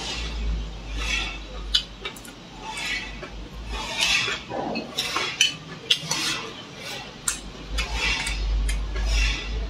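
Wooden chopsticks clicking and scraping against a ceramic rice bowl in a series of short sharp clinks, between bouts of close-up chewing while eating.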